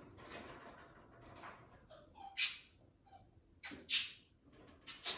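Three short, harsh animal cries: one about two and a half seconds in, one near four seconds, and one near the end, over a low background.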